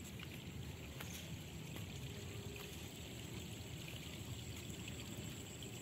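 Faint, steady outdoor background noise: a low rumble and even hiss, with a few faint ticks.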